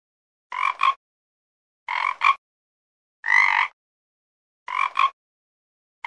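Frog croaking: four calls about a second and a half apart, most of them two quick croaks run together, with a single longer croak in the middle.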